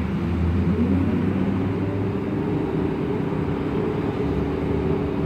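Cabin sound of a MAN Lion's Classic CNG city bus: its MAN E2876 gas engine and ZF Ecomat 6HP504C automatic gearbox running with a steady hum as the bus moves slowly in traffic. The low drone is strongest for about the first two seconds and then eases a little.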